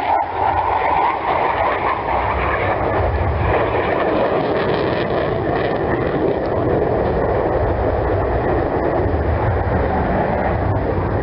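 Jet engine noise from a fighter aircraft flying a display overhead: a loud, steady rushing rumble.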